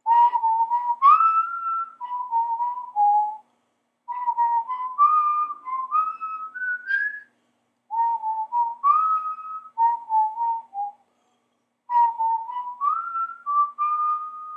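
A person whistling a tune in four phrases of about three and a half seconds each, with short pauses between them; some notes slide up into higher ones.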